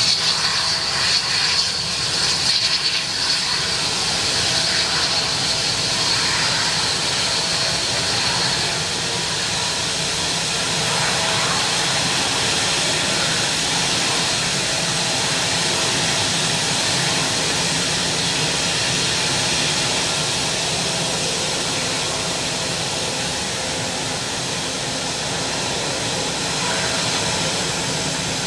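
Boeing 777-200ER's twin jet engines running steadily while the airliner taxis. A high whine over the engine rush fades away after several seconds.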